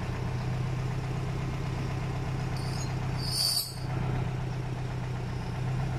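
Farm tractor's diesel engine idling steadily, with a brief high-pitched squeak a little past halfway.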